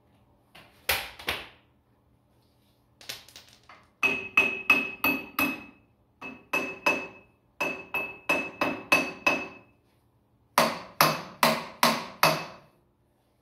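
Hammer striking metal on a tractor engine being stripped down: bursts of several sharp blows, about four a second, many carrying a ringing metallic note, with short pauses between bursts.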